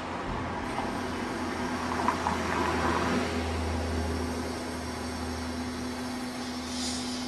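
Bascule bridge machinery humming steadily as the deck lowers, with a deep rumble that swells about halfway through and eases off toward the end.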